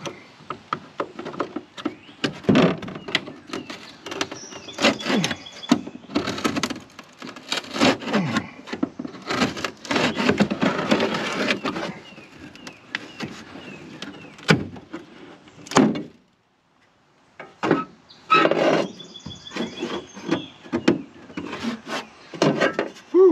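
Utility knife blade cutting and prying along the seam of the transom's L-shaped bottom lip on an aluminum jon boat, working loose a part stuck fast with 3M sealant. Irregular scraping, scratching and sharp knocks, with a brief break about two-thirds of the way in.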